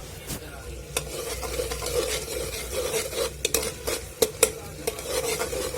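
Tomato and spice masala sizzling in hot oil in a pressure cooker as it is stirred, with repeated sharp scrapes and taps of the spoon against the pot.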